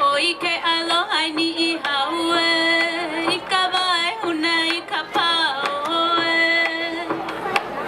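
Hawaiian hula song: a singer holding long notes that waver and glide between pitches.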